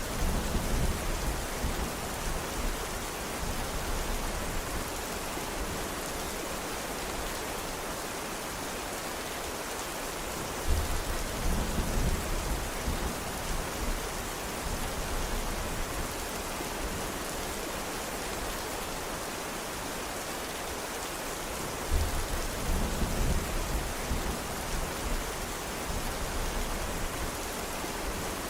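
Steady rain falling, an even hiss, with a short low rumble of thunder three times: right at the start, about eleven seconds in and about twenty-two seconds in.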